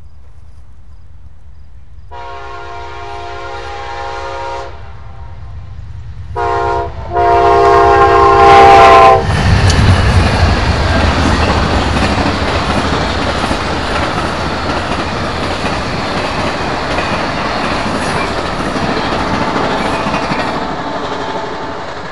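Train horn with several notes sounding together: one long blast, then a short one and a long one, the last the loudest. A train then passes with a rumble and clatter of wheels that is loudest just after the horn and slowly fades away.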